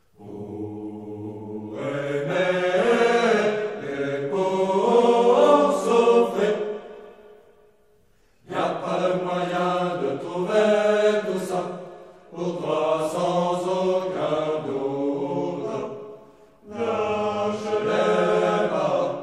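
Choir chanting in long, slow held phrases, four of them with short breaks between.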